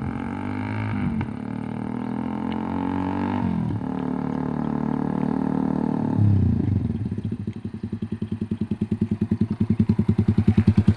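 Suzuki Raider 150's single-cylinder four-stroke engine breathing through an AUN 'Bulate' aftermarket exhaust pipe. It is held at raised revs for a few seconds, blipped once about six seconds in, then drops to a lumpy idle of distinct, evenly spaced exhaust pulses that get louder near the end.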